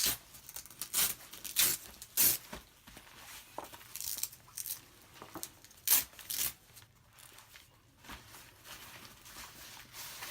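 Handling of a soft ballistic armor panel and its nylon vest carrier: a series of short, sharp fabric rasps and scrapes with quieter rustling between them, as the panel is worked into the carrier.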